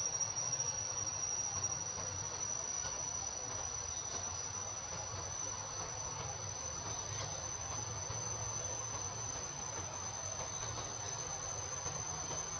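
Insects holding a steady, high-pitched drone.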